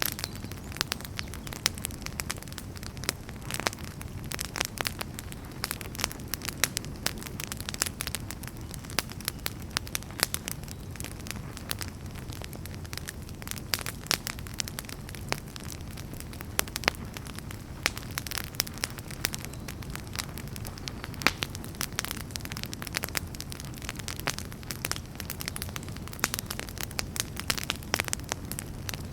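Wood campfire crackling, with frequent sharp pops and snaps at irregular intervals over a steady low rumble.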